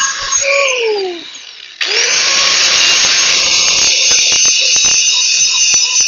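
A high-speed electric power tool spins down with a falling whine, then about two seconds in it is switched on again and runs at a steady high pitch.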